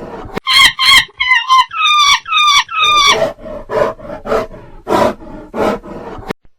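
Wild animal calls: a rhythmic series of grunting pulses, broken about half a second in by a run of about six loud, high-pitched screaming calls that each fall in pitch, before the grunting series resumes.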